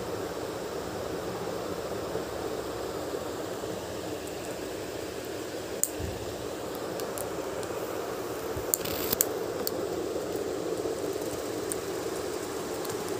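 A rose-ringed parakeet biting and handling a plastic pen cap makes a few sharp, scattered clicks, a small cluster of them about nine seconds in. Under the clicks runs a steady background hum.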